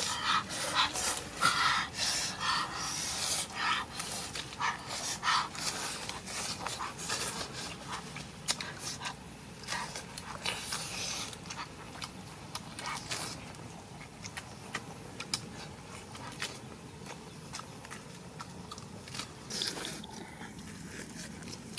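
Close-miked chewing and crunching as crisp lettuce leaves wrapped around cooked food are bitten and eaten, with wet mouth sounds. The crunches come irregularly and close together, thickest in the first few seconds and again near the end.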